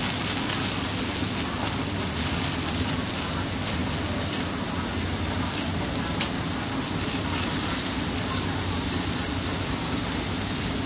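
Chicken, eggplant and winter melon curry cooking in a steel wok, a steady, even sizzle and bubble.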